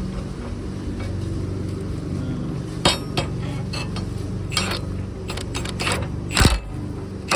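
An engine runs steadily while metal parts clink and knock several times, sharp single knocks mixed with small clusters. The engine hum cuts off near the end.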